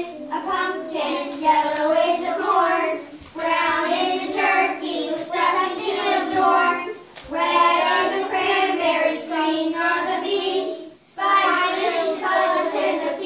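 Children singing a song, in four phrases with brief pauses between them.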